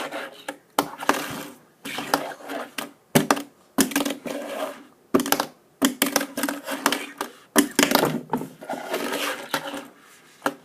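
Tech Deck fingerboard being flicked and landed on a hard surface during trick attempts: a string of sharp clacks and scrapes, irregularly spaced, with short pauses between tries.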